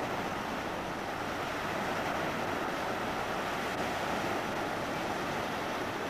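Steady wash of small sea waves breaking on a sandy beach, with wind on the microphone.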